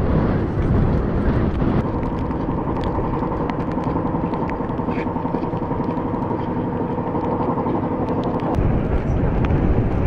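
Strong gusting wind buffeting the microphone: a loud, low rumbling roar. From about two seconds in until near the end, a steady hum of several tones runs underneath it, then stops abruptly.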